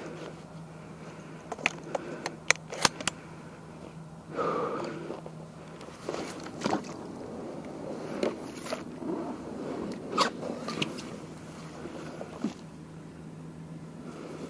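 Rustling, scraping and scattered sharp clicks of a person moving through wet marsh grass and over a floating bog mat.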